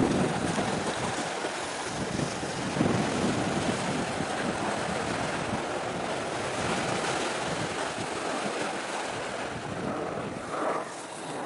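Wind rushing over the microphone and waves washing against the shore, an even hiss that swells and eases.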